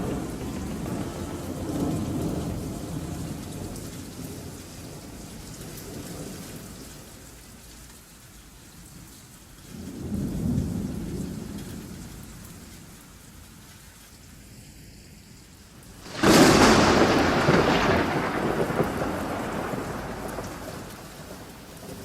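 Thunderstorm: rain falling with rolling thunder that swells and fades, then a loud, sudden thunderclap about 16 seconds in that rumbles away over several seconds.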